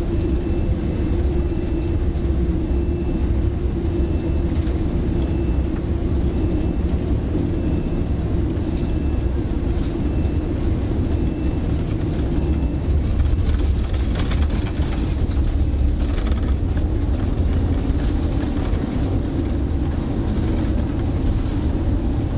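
Cabin noise of a Boeing 787-9 landing and rolling out on the runway: a loud, steady rumble of engines, airflow and wheels. There is a stretch of rattling about fourteen to seventeen seconds in, and by the end the thrust reversers are deployed.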